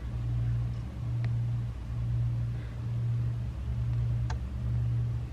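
Low background hum that swells and dips about once a second, with two faint clicks.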